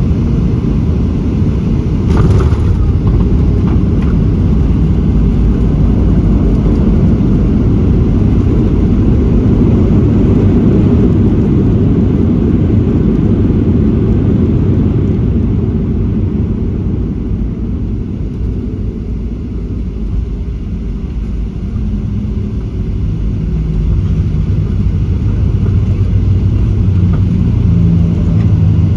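Cabin noise of a Boeing 737-700 during landing and runway rollout: a loud, steady low roar of its CFM56 engines, airflow and wheels. There is a short sharp sound about two seconds in; the roar eases in the middle and builds again near the end with a low engine hum.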